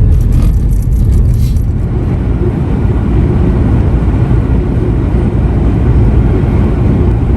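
Loud, steady low rumbling noise, with a few light clicks in the first two seconds.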